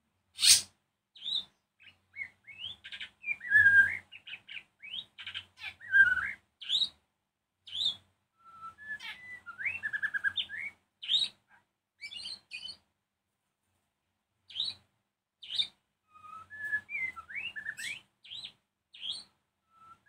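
White-rumped shama singing: a varied string of loud whistled phrases, rising and falling glides and chattering notes, opening with a sharp high note, with a quick trill of repeated notes about halfway through and a short pause after it. It is the agitated territorial song used as a lure to provoke other shamas into answering.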